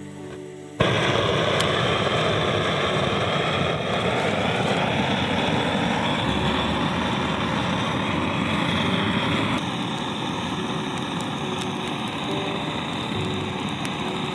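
Polaris Z-1 folding gas torch lit about a second in, its jet flame running with a loud, steady hiss that eases slightly past the halfway point.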